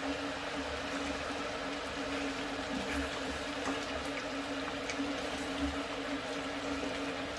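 Water and curry boiling on the stove: a steady bubbling hiss with a steady low hum underneath.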